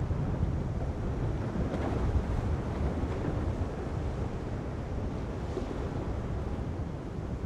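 Wind buffeting the microphone in gusts, over the steady wash of heavy surf.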